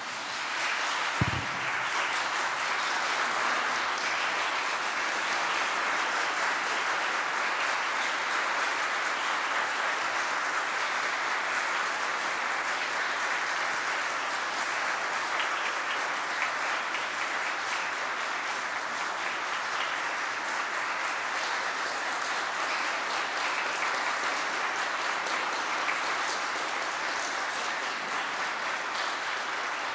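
A church congregation applauding steadily: many hands clapping together. A single low thump sounds about a second in.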